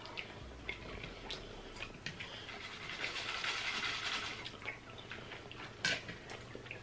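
Close-miked eating sounds: wet chewing and lip smacks with light clicks of a fork, and a sharper clink near the end. A soft slurp of drink through a straw comes about three seconds in.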